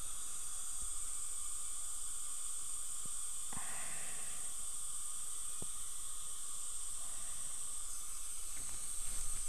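Dental saliva ejector suction hissing steadily, with a few faint clicks and a brief swish about three and a half seconds in.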